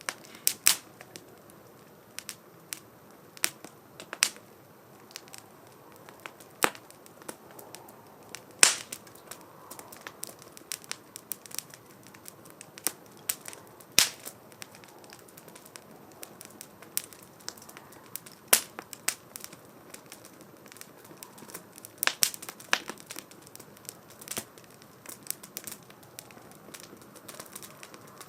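Wood fire crackling: irregular sharp pops and snaps over a soft steady hiss, with a few louder pops scattered through.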